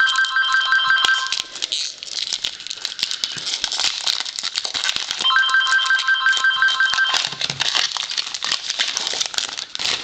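Foil wrapper of a baseball card pack crinkling as it is torn open and the cards are pulled out. Over it, a telephone rings in a pulsed trill: one ring stops about a second in, and another sounds from about five to seven seconds in.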